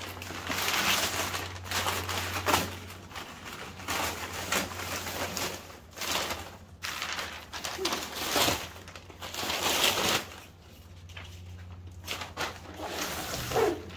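Paper packing wrap being torn and pulled off a new wing foil board, in irregular crinkling, ripping rustles.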